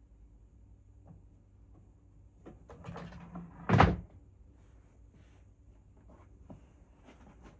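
A few light clicks and rattles, then a door shutting with a single short thump just before four seconds in.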